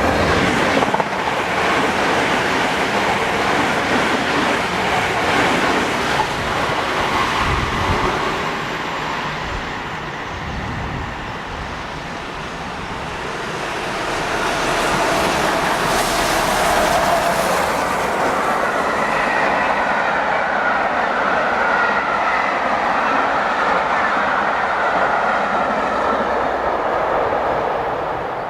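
Steam-hauled express train, led by Peppercorn A1 class 4-6-2 locomotive 60163 Tornado, passing at speed: the train rolls by with a clickety-clack from its wheels, dipping for a few seconds and fading near the end.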